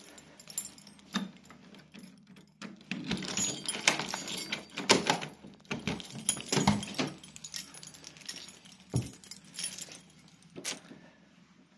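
Keys jangling and clinking, with a metal lever door handle worked and a door opened: a run of irregular clatter and knocks in the first half, then a few single knocks.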